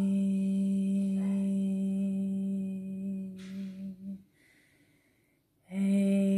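A voice humming one steady low note for sound healing, stopping about four seconds in for an in-breath and starting the same note again about a second and a half later.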